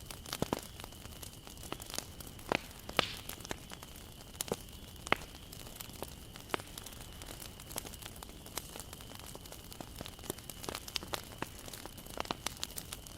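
Wood bonfire crackling and popping, with irregular sharp snaps of burning wood over a steady soft hiss.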